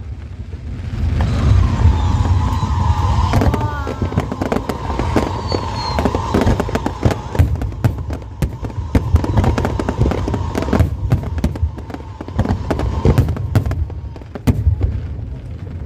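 Fireworks display: a dense, continuous barrage of bangs and crackles over deep booms, with a high whistle held through most of it.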